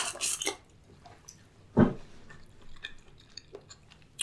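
Close-miked mouth eating sounds from a person eating boiled seafood: wet chewing and lip smacks, with one louder smack a little under two seconds in and small clicks after it.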